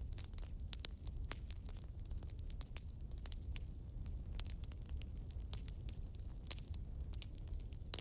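Wood fire burning in a fireplace: logs crackling and popping in irregular sharp snaps over a low steady rumble.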